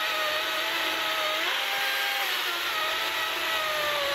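A 16-inch DeWalt 60-volt battery chainsaw cutting through a log. Its electric motor gives a steady whine that shifts slightly in pitch as the load changes, over the hiss of the chain chewing wood.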